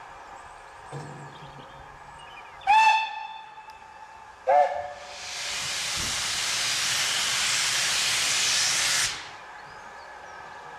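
Steam locomotive whistle sounding two short blasts, the second lower in pitch. This is followed by a steady hiss of escaping steam for about four seconds that cuts off sharply.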